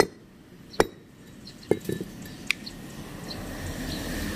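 Sharp metallic clinks and knocks of a BMW X5 E53 front brake caliper's parts being handled and fitted together: three knocks about a second apart, then a few lighter ticks. A low rumbling noise builds in near the end.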